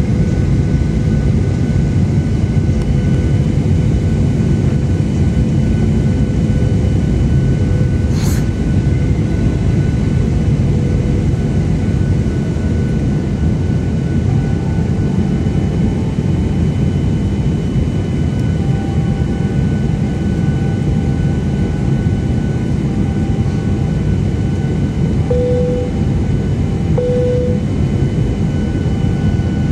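Cabin noise of a jet airliner on approach to land, heard from a window seat beside the wing engine: a steady rumble of engines and airflow with a few faint steady high tones over it. A brief tick sounds about 8 s in, and two short tones near the end.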